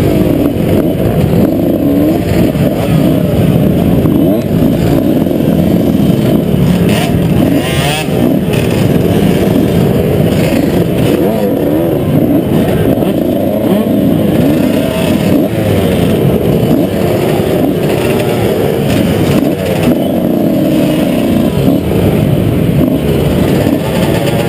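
Motocross bike engines running at low revs as the bikes roll slowly in a queue, the nearest one loudest, the revs wavering up and down a little.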